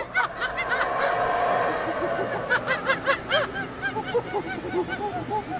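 A flock of birds calling at once: many short, rising-and-falling calls overlapping without a break.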